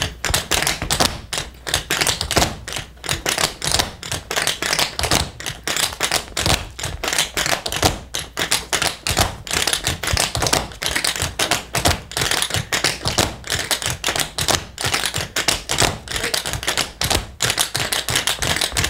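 A group of tap dancers' metal-plated tap shoes striking the floor in a fast, dense run of sharp clicks, with no music.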